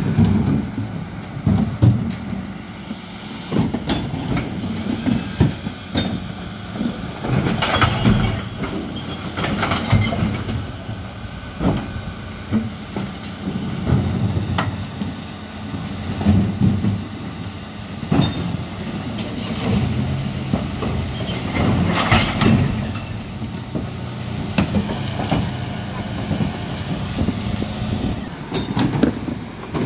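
Mercedes-Benz Econic refuse lorry with a Terberg Olympus body running steadily while its rear bin lift tips blue recycling wheelie bins, with repeated knocks and clatter from the bins and the recycling dropping into the hopper.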